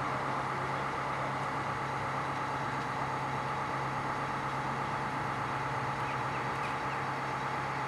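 Heavy vehicle engine running steadily at a constant speed, an even low hum with no change in pitch.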